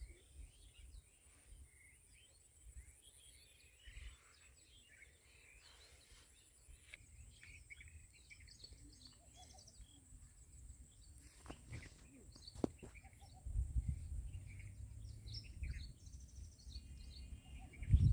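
Small birds chirping and calling in short, scattered notes, faint against an open-air background. A low rumble comes in during the second half, with a few sharp clicks just before it.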